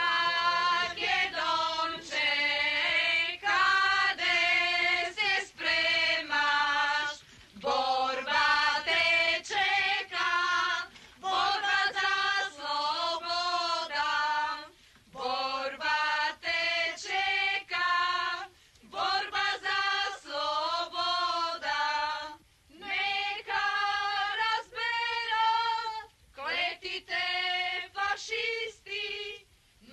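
A group of women singing a song together, without words of speech, in phrases of a few seconds with short pauses for breath between them.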